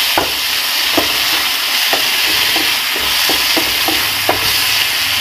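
Chopped onions and capsicum sizzling in hot oil in a non-stick frying pan while a spatula stirs them, its strokes scraping the pan about twice a second.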